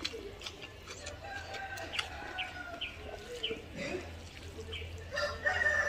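Chickens clucking in a series of short calls, with a louder, drawn-out call near the end.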